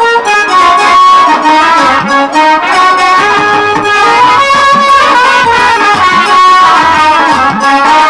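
Instrumental jatra band music: a melody of held notes over repeated drum strokes.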